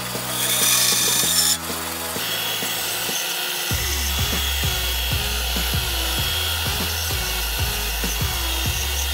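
Band saw cutting through a wooden blank, stopping abruptly about a second and a half in; then a sander runs as a wooden piece is held against it. Background music with a steady bass line plays throughout.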